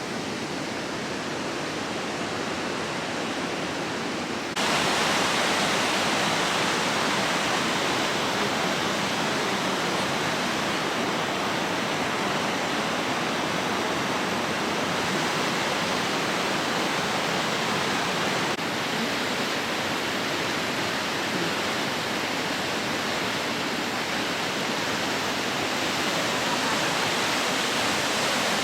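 Creek water rushing steadily over rocks, a dense even hiss that jumps louder about four and a half seconds in.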